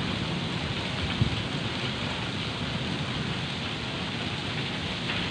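Heavy rain falling steadily, a continuous hiss, with a brief low thump about a second in.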